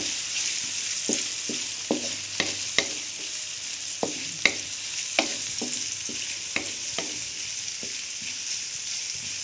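Sliced onion and garlic sizzling in hot oil in a pan, stirred with a wooden spatula that knocks and scrapes against the pan at irregular moments over a steady frying hiss.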